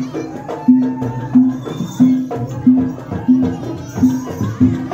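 Jaranan folk music: percussion strikes and a low note repeating about every two-thirds of a second, with a wavering melody above.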